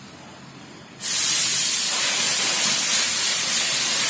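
A loud, steady hiss switches on suddenly about a second in and keeps going, strongest in the high treble.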